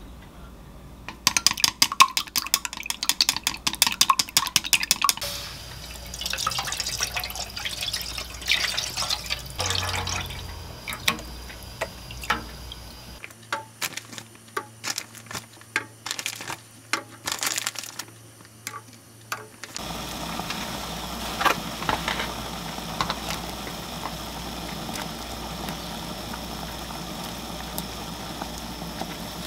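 Wooden chopsticks beating eggs in a glass bowl, a fast run of clinking taps for a few seconds, then scattered clicks and rustles as chicken-breast balls are added to a pot of broth. From about two-thirds of the way in, the broth simmers on the gas stove with a steady hiss.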